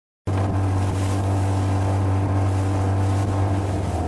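Small motorboat's engine running steadily as the boat travels across open water, a deep even hum with wind and water noise over it. It cuts in abruptly about a quarter second in.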